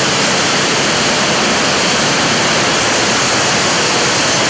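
Cotton gin machinery running, heard from inside the gin: a loud, steady, even din with no let-up.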